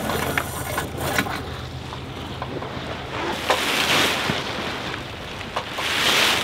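Wind buffeting the microphone and sea noise on the deck of a sailboat under way. There are a few sharp clicks in the first second or so and two louder gusts of hiss later on.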